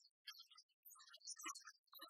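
Near silence, with only faint scattered blips of sound.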